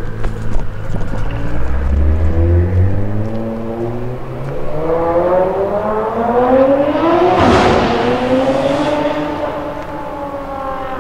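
Nissan GT-R R35's twin-turbo V6 accelerating, its engine note rising steadily as it comes closer. It passes close about seven and a half seconds in, then drops in pitch and fades as it pulls away.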